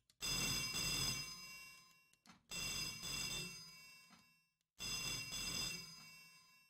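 Telephone bell ringing: three rings in a row, each about two seconds long, starting loud and fading out before the next one begins.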